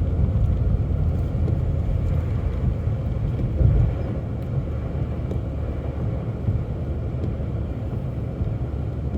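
Car driving, heard from inside the cabin: a steady low rumble of road and engine noise, with a brief louder bump about three and a half seconds in.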